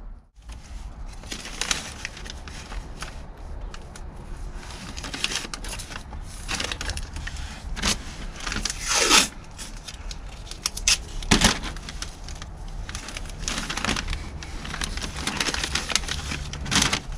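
Masking tape being pulled off the roll, torn and pressed onto the car's sheet-metal inner wing: a run of crackles and taps with several louder ripping pulls, the loudest about nine and eleven seconds in.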